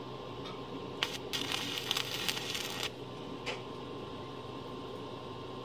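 Stick (electric arc) welding tack weld on steel grille bars: the arc strikes about a second in and crackles for about two seconds, then strikes again briefly near the middle.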